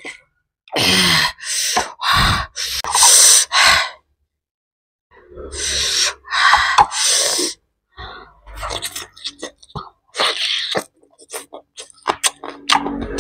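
A person's loud, breathy gasps and exhalations close to the microphone, a run of about four, then a few more a second or two later. After that come short clicks and smacks of eating and chewing.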